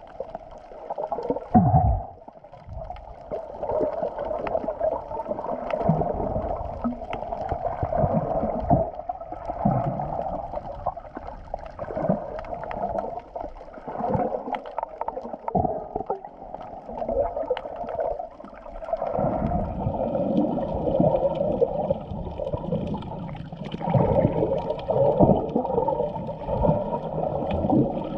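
Muffled underwater sound of water moving and gurgling around a GoPro in its waterproof housing, with scattered clicks and knocks. It grows fuller and louder about two-thirds of the way through.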